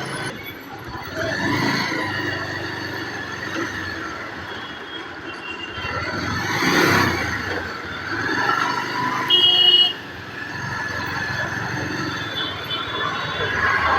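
Busy road traffic heard from a moving motorcycle: engines and tyre noise throughout, a vehicle passing close about seven seconds in, and a short vehicle horn toot about nine seconds in, the loudest sound.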